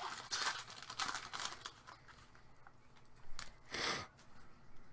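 Foil wrapper of a trading-card pack crinkling and tearing as it is opened, followed by two short, louder rustles a little after three seconds in as the wrapper and cards are handled.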